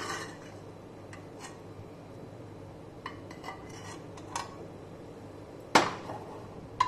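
Steel ladle and stainless steel saucepan clinking lightly against metal a few times, then one louder metal clank near the end.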